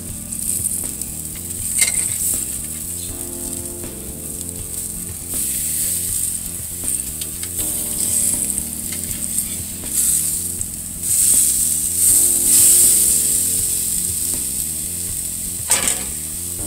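New York strip steaks sizzling on the hot grates of a charcoal grill, the sizzle swelling and easing, with a few sharp metal clicks and scrapes from the spatula and grill press as the steaks are flipped and pressed.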